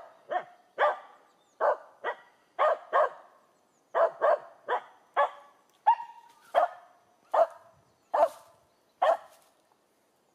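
Finnish Spitz barking at a squirrel up a tree: about fifteen short, sharp barks, singly or in quick pairs, with a pause near the end. This is the breed's bark-pointing at treed game.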